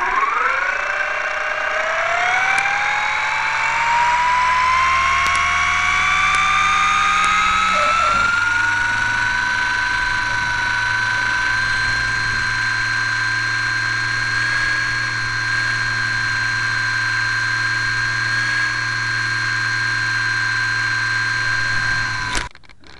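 Radio-controlled Hurricane model plane's motor spinning up on the ground: its whine rises steeply in pitch over the first several seconds, then holds at a steady high pitch. It cuts off abruptly near the end.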